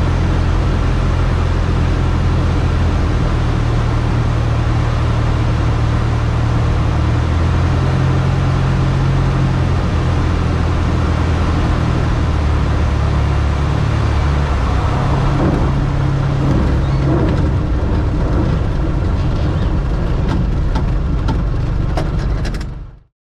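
Light aircraft's piston engine running at low, taxi power, heard close from the cowling, steady with a few slight shifts in pitch. A few clicks come near the end, then it fades out.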